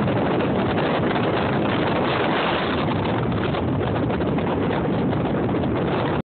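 Steady wind buffeting the microphone, mixed with ocean surf breaking on the beach.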